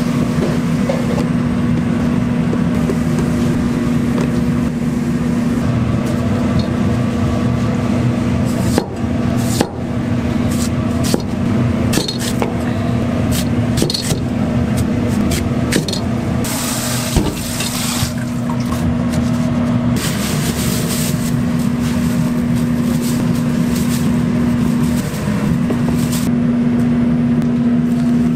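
Steady mechanical hum, with scattered knocks and clatter in the middle and a long stretch of hiss in the second half.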